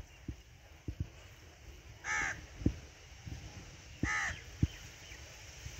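A crow cawing: single harsh caws about two seconds in and again about four seconds in. Several soft low thumps fall between the caws.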